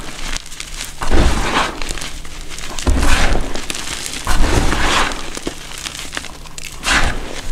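Handfuls of powdered gym chalk being squeezed and crumbled in a bucket: a soft, gritty crunch and crackle of packed powder breaking apart, in about four swells one to two seconds apart, each with a dull thump underneath.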